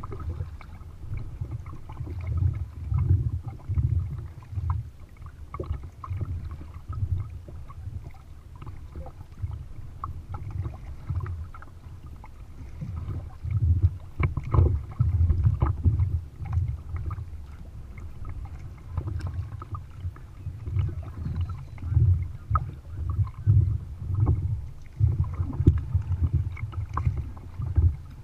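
Kayak being paddled on choppy water: water slapping against the hull as a low, uneven rumble, with splashes and drips from the double-bladed paddle.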